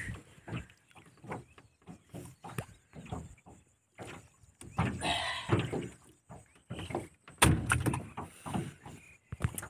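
Irregular knocks, clicks and rustles against a wooden boat as a caught fish is unhooked and handled, with a heavier thump about seven and a half seconds in and another sharp knock near the end.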